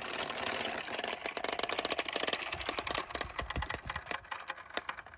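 A train of plastic balls rolling down a clear acrylic channel and knocking against each other: a dense, rapid clicking that thins to scattered separate clicks near the end.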